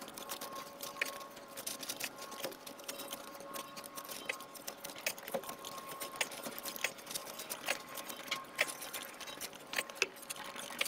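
A spade digging and scraping in soil, heard as faint, irregular clicks and scrapes.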